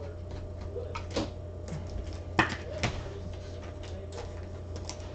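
Scattered light clicks and taps, the two loudest a half second apart about halfway through, over a steady low hum.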